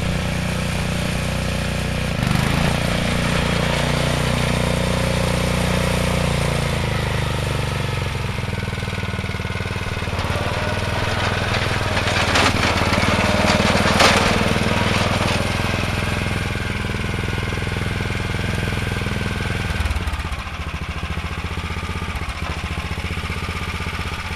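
Garden tractor's single-cylinder Tecumseh snowblower engine running steadily through an open upright exhaust stack, with a brief clatter about halfway through. It falls to a lower, quieter idle about twenty seconds in.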